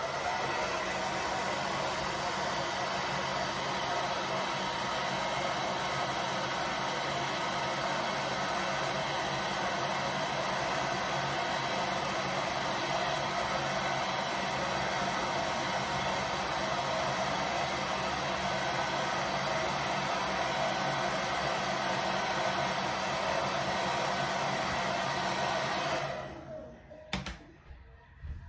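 Hair dryer running steadily, then switched off about two seconds before the end.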